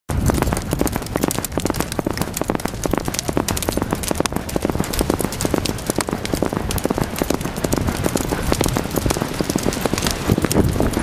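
Horses moving across sand, heard as a dense, irregular crackle of many small clicks over a steady low rumble.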